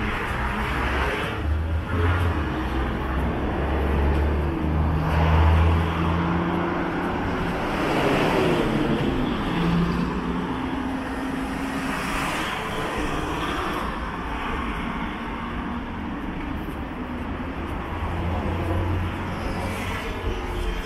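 City street traffic: cars and other motor vehicles passing, their engines rumbling and rising and falling in pitch. The loudest vehicle goes by about eight seconds in, with others passing later.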